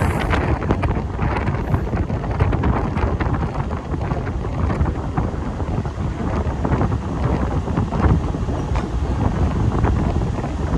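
Wind buffeting the microphone at the open door of a moving Mumbai suburban local train, over the steady running noise of its wheels on the rails with frequent sharp clacks.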